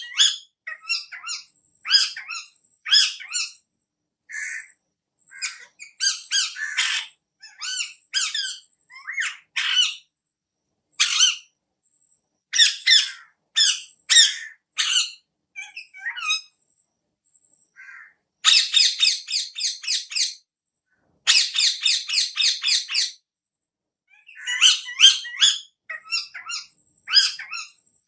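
Pet parrot calling: many short, shrill squawks and chirps in clusters with short gaps between them, and two long runs of rapid repeated calls a little past halfway.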